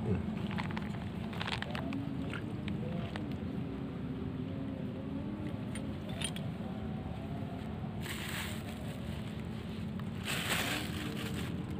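Outdoor background with a steady low rumble and faint distant voices, a few light clicks early on, and two short rustling bursts about eight and ten seconds in.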